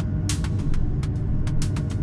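Steady low rumble of an Airbus A220-100's cabin during the climb after takeoff, from its Pratt & Whitney PW1500G geared turbofan engines. Music is laid over it, with irregular sharp clicks a few times a second and a faint held tone.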